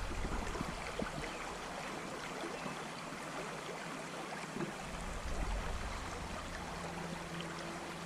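Creek water running steadily in an even rush, with a few faint ticks scattered through it.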